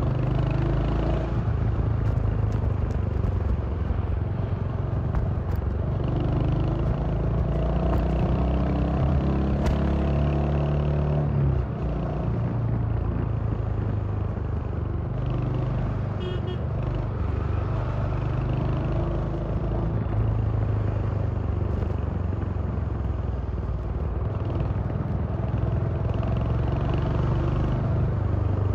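Royal Enfield Hunter 350's single-cylinder 349 cc engine and exhaust running steadily under way, with a brief easing off of the throttle about twelve seconds in.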